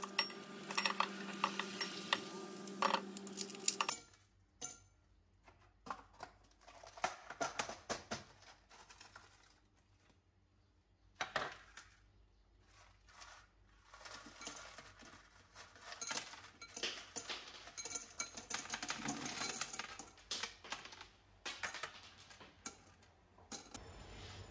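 Ice cubes clinking and knocking into a glass as they are popped out of a plastic ice tray, with scattered clicks and taps of the tray and glass on the counter. A steady low hum sounds under the first four seconds, then stops.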